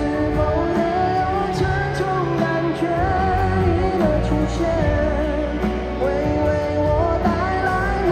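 Live concert music: amplified singing over a full band accompaniment with bass and drums, heard through a large PA system.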